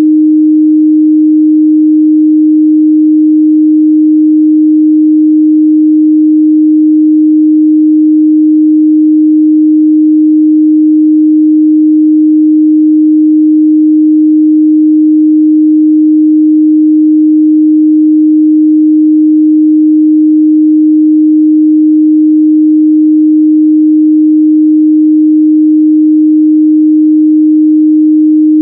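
A continuous 308 Hz sine-wave test tone, one steady pure pitch at a constant loud level.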